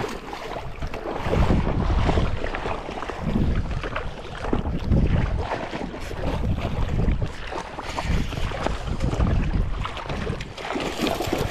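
Wind buffeting the microphone in uneven gusts, with water splashing as a hooked barramundi thrashes at the surface.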